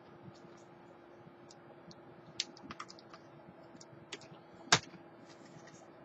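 Scattered light clicks and taps, irregular, with the sharpest one about three-quarters of the way in, over a faint steady hum.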